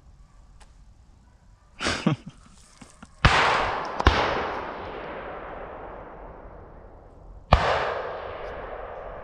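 Three shotgun blasts: two about a second apart, then a third some three seconds later, each followed by a long echo rolling away. A brief loud sound comes just before the first shot.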